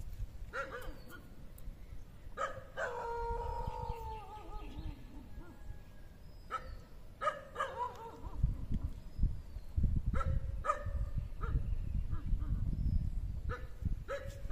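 A dog barking repeatedly in short, sharp barks, with one longer whine that falls in pitch about three seconds in, over a low rumble that grows stronger in the second half.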